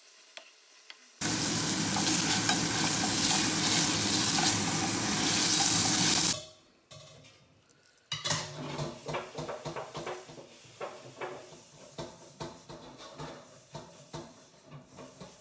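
Stir-fried noodles and tofu being mixed in a hot pan: a loud sizzle starts abruptly about a second in and stops about five seconds later, followed by quieter, irregular scraping and clinking of the utensil against the pan over a faint sizzle.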